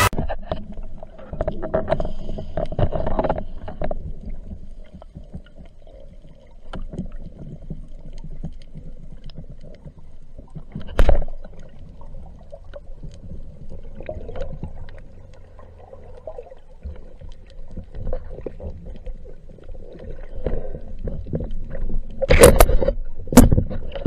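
Underwater noise picked up by a speargun-mounted camera: a low, uneven rumble of water against the housing, with a sharp knock about 11 seconds in and a few louder knocks near the end.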